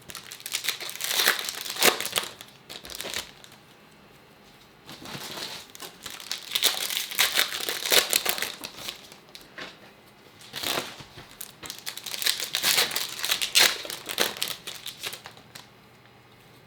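Trading card pack wrappers crinkling and tearing as Topps Chrome Update packs are opened by hand, in three bouts of a few seconds each with short pauses between.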